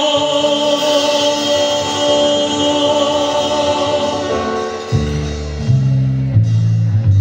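Live band music: a male singer holds one long note over acoustic guitar and the band, fading out about four seconds in. Then the electric bass comes forward with a run of low notes stepping in pitch.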